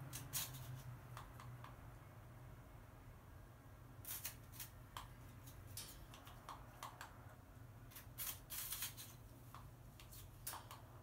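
A crow's beak tapping and pecking at a whole apple: several short clusters of sharp light clicks, the crow cautious with the apple.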